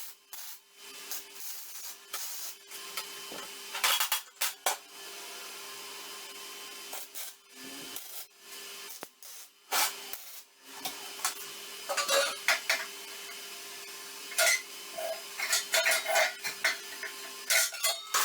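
Irregular scraping, rubbing and clattering of hand work with tools and hard objects, in clusters of sharp clicks and scrapes, over a steady low hum.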